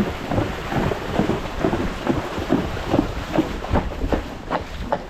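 A horse wading through floodwater, its legs splashing in irregular heavy thuds about three times a second, with wind buffeting the microphone.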